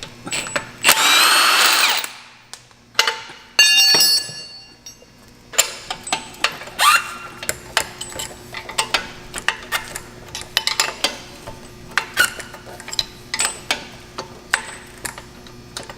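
Cordless power tool running in a loud burst whose pitch rises and falls, then a second short burst, as the rear shock mounting bolts are taken off. After that come many irregular sharp metallic clicks and clinks of tools on the shock hardware.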